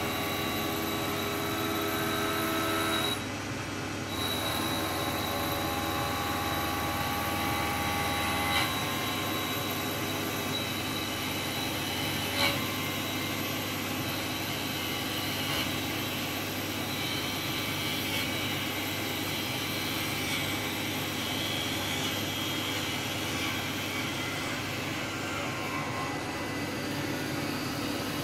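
CNC wood lathe running as it turns a small wooden ball: a steady machine drone with high whining tones that shift as the cutter works the spinning wood. It dips briefly about three seconds in, and there is a sharp click about twelve seconds in.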